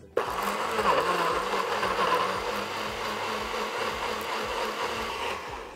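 Personal bullet-style blender running at full speed, pureeing a whole peach, garlic, chipotle peppers and herbs into a sauce. It starts abruptly, its motor pitch dips briefly about a second in as the blades catch the solid fruit, then holds steady as the contents turn liquid, and it winds down near the end.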